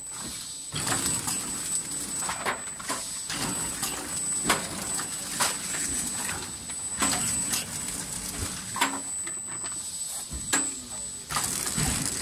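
Automatic flow-wrap packaging machine for hardware parts running: a steady high-pitched whine under irregular clacks and knocks.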